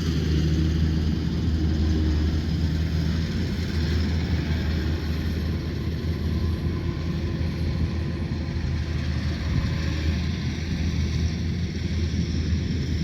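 Rice combine harvester's diesel engine running steadily under load, a low, even hum with the machinery's noise over it.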